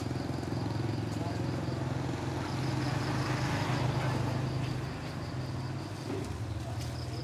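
Steady low motor hum at an even level, with faint voices in the background.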